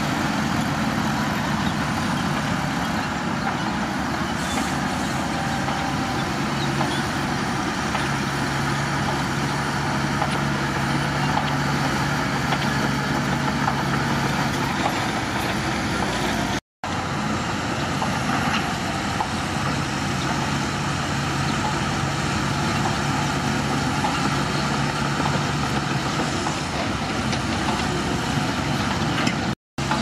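Shantui crawler bulldozer's diesel engine running steadily under load as it pushes soil, with a low steady drone. The sound cuts out completely for a split second twice.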